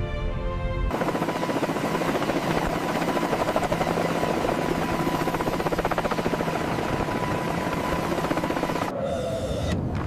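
Helicopter running with its rotor turning: a rapid rotor chop over a dense rush and a steady high tone. It starts about a second in and cuts off near the end.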